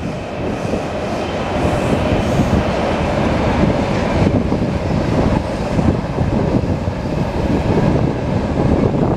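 A freight train's container flat cars and loaded coal gondolas rolling past. The wheels clatter densely over the rails above a steady rumble.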